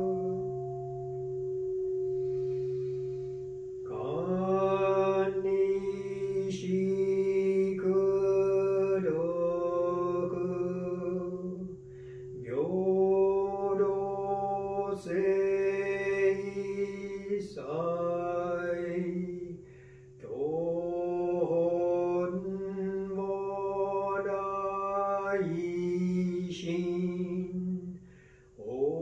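Buddhist liturgical chanting by a single male voice: slow phrases of long held notes, each beginning with an upward slide, over a steady low tone.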